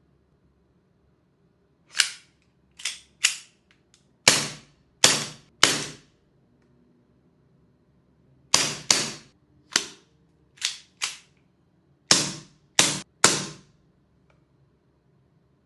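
Airsoft M92 pistol firing about fourteen sharp single shots, in quick clusters of two or three with short pauses between.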